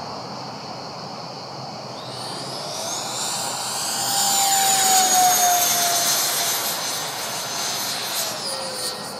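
Electric ducted fan of a Freewing JAS-39 Gripen RC jet (80 mm nine-blade fan on an inrunner motor) whining on a fast low pass: it swells to its loudest about five seconds in, and its pitch drops as the jet goes by.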